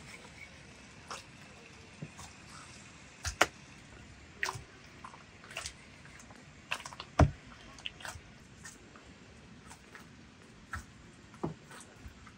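Hands kneading dough in a plastic basin: scattered squishes, slaps and knocks at irregular intervals, the sharpest about three and seven seconds in.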